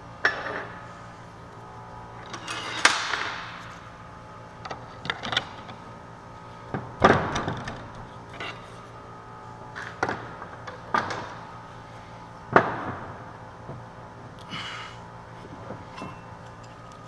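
Irregular clanks and knocks of metal parts and tools being picked up and set down on a workbench, about a dozen over the span, the loudest about seven seconds in and near the end.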